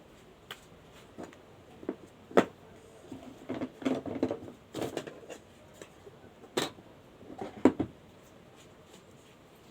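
Scattered sharp clicks and knocks of small hard objects being handled, with a dense run of rattling taps in the middle and single louder knocks after it.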